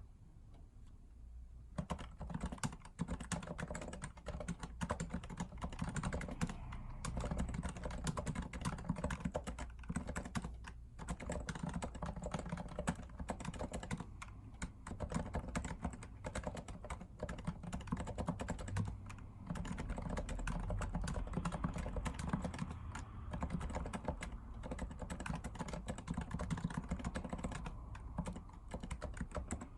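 Rapid, continuous typing on a REALFORCE R2 PFU Limited Edition keyboard with Topre electrostatic capacitive key switches: a dense run of irregular keystrokes that starts about two seconds in.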